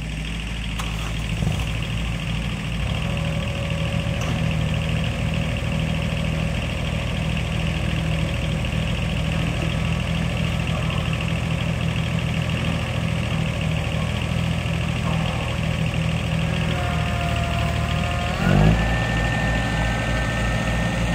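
Farmtrac compact tractor's diesel engine running steadily as it drives. About 18 seconds in, the engine note rises sharply with a brief surge, and a higher whine holds from there.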